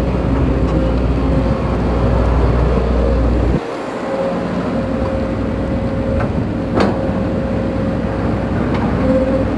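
Case CX210B excavator's diesel engine and hydraulic main pump running, a steady whine over the engine sound; the pump is suspected of being noisy and worn. The low rumble drops away abruptly about three and a half seconds in, and there is a single click near the middle.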